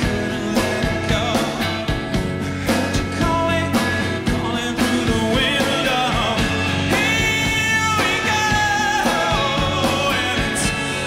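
Live rock band playing: a man singing over electric guitar and drums.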